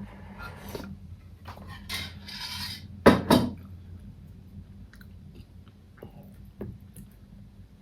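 Close-up eating sounds: utensils scraping and clinking on a plate, with two loud knocks a little after three seconds in, then soft chewing.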